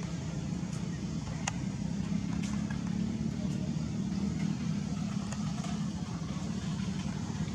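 A motor engine running steadily, a low hum, with a few faint clicks.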